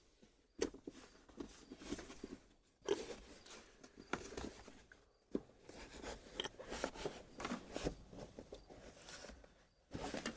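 Car carpet and wiring being worked by hand with a razor knife: irregular crunchy rustling and crackling with scattered sharp clicks.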